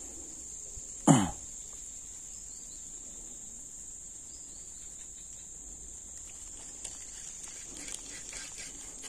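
Steady high-pitched drone of insects, crickets by its sound, continuing throughout. About a second in comes one brief, louder sound that drops quickly in pitch.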